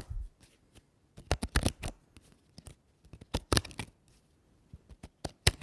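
Paper being ripped in short tears: several separate bursts of crisp crackling, a second or two apart, with quiet between them.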